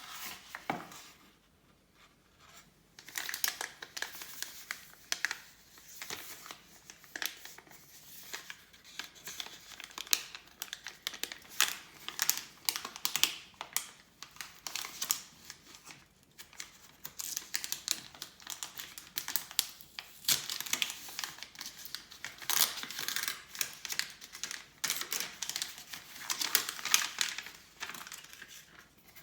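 Packaging being handled and opened by hand: irregular crinkling, rustling and tearing of wrapping, with short pauses between bursts.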